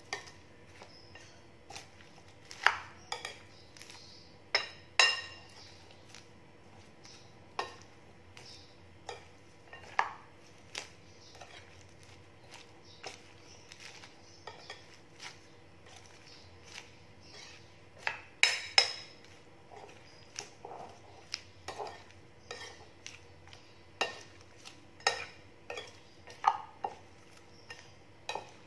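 Metal spoon stirring shredded vegetables and fritter batter in a glass bowl, clinking irregularly against the glass, with a few clinks louder than the rest.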